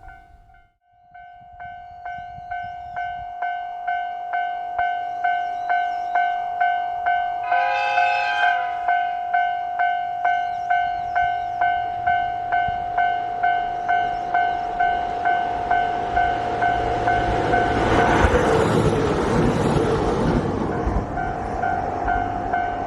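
Japanese level-crossing warning bell ringing in a steady repeating ding, about one and a half strikes a second. About eight seconds in, an approaching diesel train sounds its horn briefly. From about eighteen seconds the train runs through the crossing with a rush of wheel and rail noise, and the bell keeps ringing as it passes.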